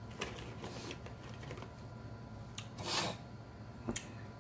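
Close-up eating mouth sounds: a few short wet smacks in the first second, a louder slurp about three seconds in, and a sharp click near the end.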